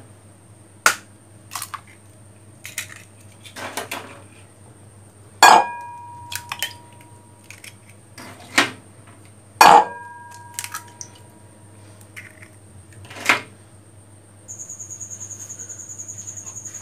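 Eggs cracked one after another against a ceramic bowl: a series of sharp taps and cracks, two of them loud enough to set the bowl ringing briefly. Near the end a cricket starts a high, fast-pulsing trill.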